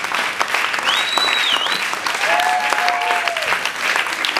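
Audience applauding steadily. A high whistle sounds about a second in, and a held cheering voice from the crowd comes around the middle.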